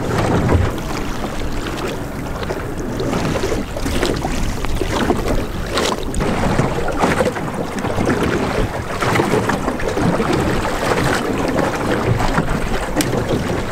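Wind buffeting the microphone over choppy sea water lapping against the hull of a low layout boat, with a few brief splashy slaps of waves against the hull.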